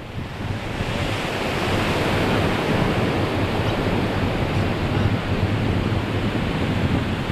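Ocean surf washing steadily on a beach, swelling about a second in, with wind rumbling on the microphone.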